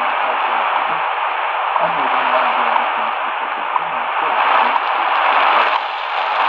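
Shortwave static hissing from the XHDATA D-328 portable radio's speaker, with a weak station's voice faintly breaking through underneath as the band is tuned.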